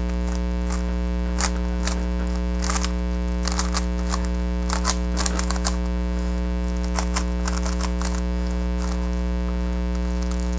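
Plastic clicking of a GAN 356 RS 3x3 speedcube being turned by hand during a solve, in irregular runs of quick clicks. Under it runs a loud steady electrical mains hum.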